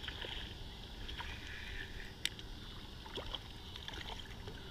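Spinning reel being cranked as a small fish is reeled in, with light splashing of the fish at the water's surface and scattered short clicks. The loudest is a sharp click about two seconds in.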